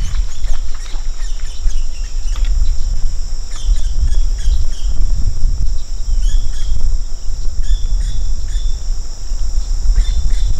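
Marsh ambience: a steady, high insect drone and scattered short bird chirps, over an uneven low rumble that is the loudest part.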